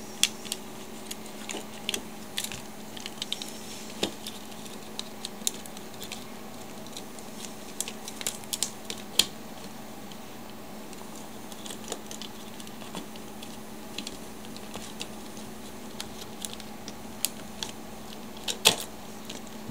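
Irregular small clicks and taps of plastic phone-handset parts being handled and pried apart with a screwdriver, with a sharper click near the end, over a steady low hum.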